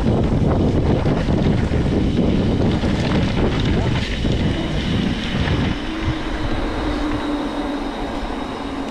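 Mountain bike rolling with wind buffeting the microphone and the tyres rattling and rumbling over a gravel track. About six seconds in the rumble eases as the bike rolls onto smooth tarmac, leaving wind noise and a faint steady hum.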